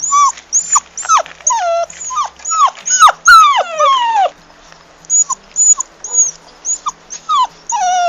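Puppies crying and whimpering: a rapid series of short, high-pitched cries, each sliding down in pitch, with a few longer drawn-out falling cries about three to four seconds in.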